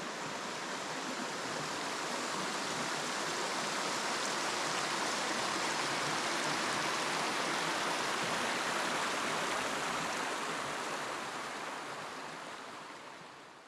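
Creek water running steadily, fading out near the end.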